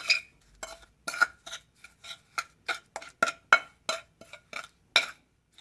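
A tool clicking and scraping against its dish as it folds a heavy cement paste over on itself, about three strokes a second, each with a short ring; the paste is being worked after a drop of soap was added to loosen it.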